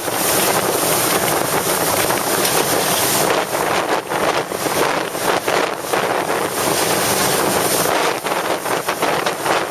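Strong wind buffeting the camera microphone, a loud steady rush with brief dips.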